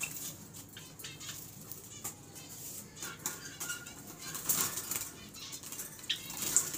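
Caged Java sparrows fluttering their wings and scrabbling against the wire, with light rustles and clicks throughout and a few short chirps.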